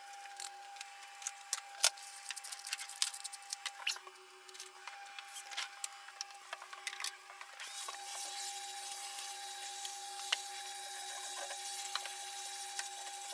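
Henry tub vacuum cleaner running with a steady hum while grit and debris click and rattle up the hose. From about halfway through, a steady suction hiss comes in as the nozzle is worked along the floor.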